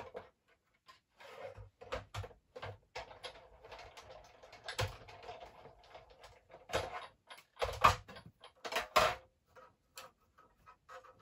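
Irregular knocks, clicks and rustles of cardstock and die-cutting plates being handled on a craft desk while a small scrap of card is die-cut, with the loudest knocks about halfway through and twice more near the end.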